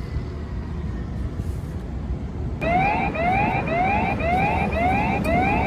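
An electronic siren starts about two and a half seconds in, sounding a fast rising yelp of about two sweeps a second, over a steady low background rumble.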